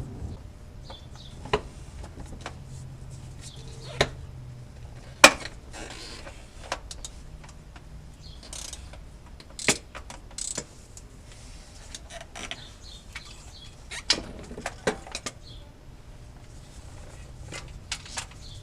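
Hand tools clicking and knocking on metal: a dozen or so sharp, scattered clinks at uneven intervals, the loudest about five seconds in, over a low steady hum.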